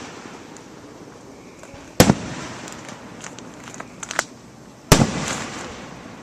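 Aerial fireworks shells bursting: two loud bangs about three seconds apart, each trailing off in a rolling echo, with a couple of smaller pops between them.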